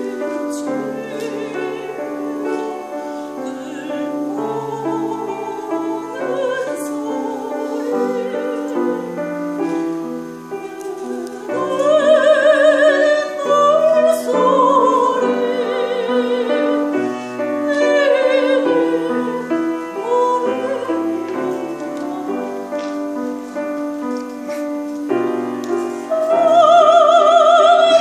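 Piano playing alone for about the first ten seconds, then a soprano comes in singing with a wide vibrato over the piano accompaniment. Near the end she rises to a loud, held note.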